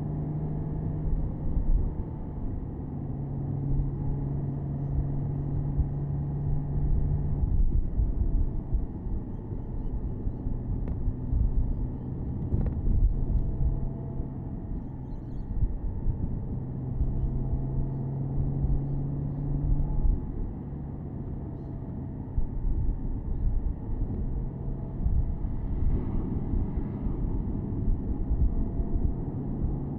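Porsche Boxster S flat-six engine and road rumble heard from inside the open-top car while cruising. A steady engine hum comes and goes as the load changes.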